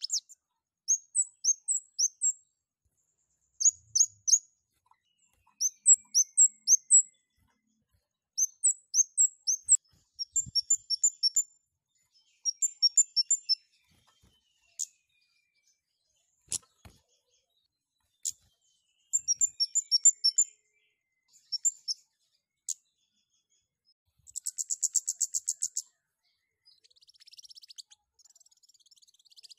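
Scarlet-headed flowerpecker (kemade, cabe Jawa) calling in short bursts of three to five very high, thin chirps with gaps between them. About 25 seconds in it gives a fast buzzy trill, and there are a few sharp ticks between phrases.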